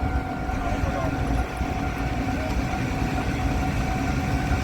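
Rail engineering maintenance car's engine running steadily: a continuous low rumble with a steady whine over it.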